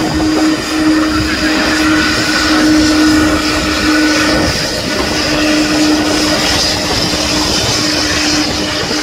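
Boeing 777-200's jet engines running as the airliner taxis close by: a steady high whine over a low hum and rumble.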